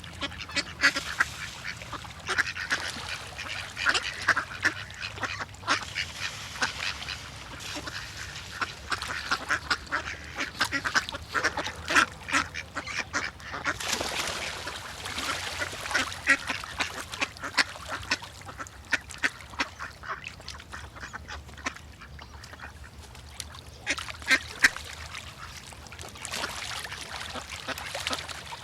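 A flock of ducks quacking continuously, many birds calling over one another in rapid, overlapping quacks.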